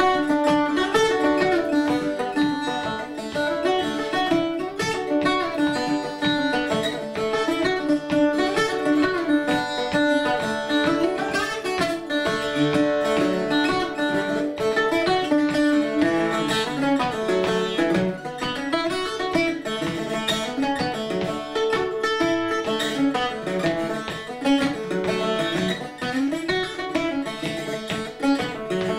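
A solo acoustic plucked string instrument playing a quick jig melody, with notes following each other in fast, even runs over steadily ringing lower strings.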